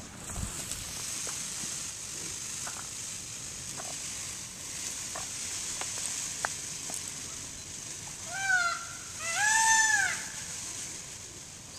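Indian peafowl (peacock) giving two loud calls about two-thirds of the way in, each rising then falling in pitch, the second longer and louder. A steady high hiss lies underneath throughout.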